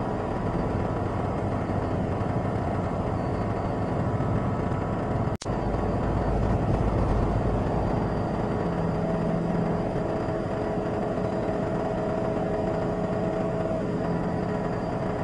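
Steady vehicle engine noise with a few faint steady tones in it. It cuts out for an instant about five seconds in.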